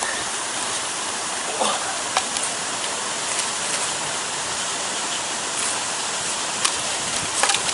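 Steady rushing of river water and a nearby waterfall, with a few brief rustles and clicks over it.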